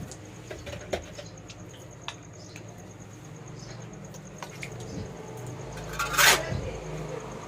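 Damp sand being stirred and scraped by hand, with small scattered clicks and one loud rough swish about six seconds in; this is the cage floor being mixed with turmeric water to disinfect it.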